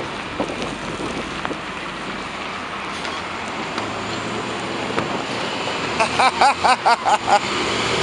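Nova Bus articulated city bus straining to pull away in deep snow, its engine droning and its drive tyre churning, with wind noise. Near the end there is a rapid run of short squealing chirps, about six a second.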